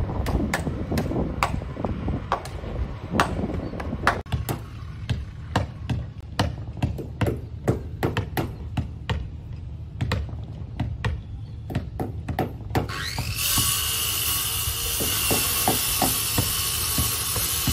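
Irregular hammer blows on the wooden hull of a fishing boat under repair, at times several a second. About thirteen seconds in, a power tool starts up and runs on steadily with a high whine over the knocking.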